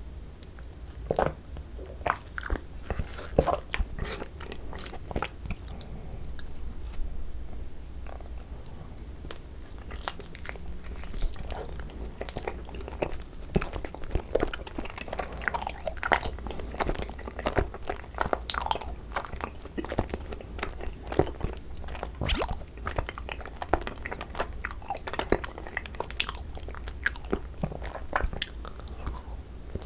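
Close-miked chewing and biting of cream-cheese-filled Korean rice cakes (tteok): a steady run of irregular small clicks and crunches.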